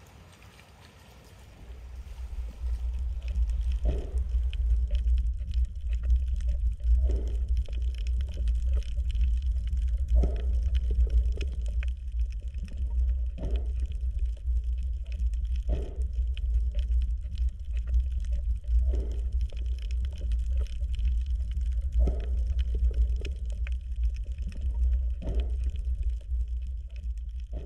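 Sea water moving: a steady low rumble with fine crackling, and a louder surge about every three seconds.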